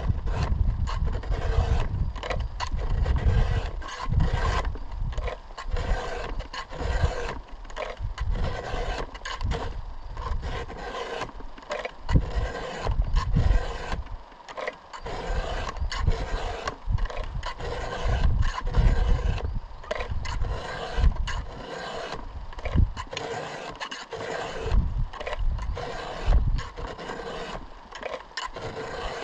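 Chainsaw chain being sharpened, with repeated short scraping strokes at an uneven pace. The chain has been dulled by cutting into sand.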